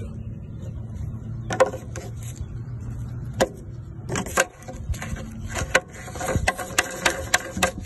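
Hard plastic clicks and knocks as a PVC pipe is seated in a pool heat pump's water-out fitting and its plastic union nut is turned on by hand, the clicks coming thick and fast in the second half. A low steady hum runs underneath until about halfway through.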